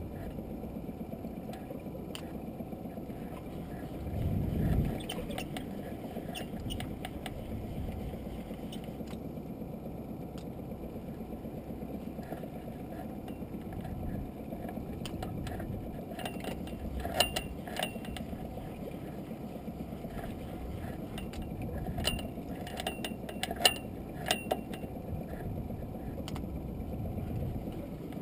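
Steady low wash of the sea around a small open boat, with a brief louder low rush about four seconds in. Scattered sharp clicks and a mechanical winding come from a spinning reel being handled and wound, most of them in the second half.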